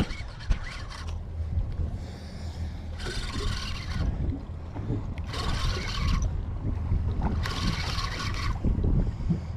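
Penn Slammer spinning reel cranked in short spells, about a second each, three times, while a fish is fought, over a steady low rumble.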